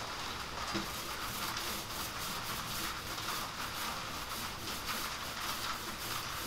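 Small paint roller loaded with primer rolling up and down a bookcase panel, a steady wet hiss.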